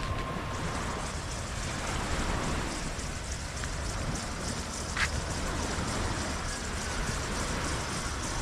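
Steady hiss of surf and wind at the shoreline, with one sharp click about five seconds in. A bell-like ringing tone dies away in the first moment.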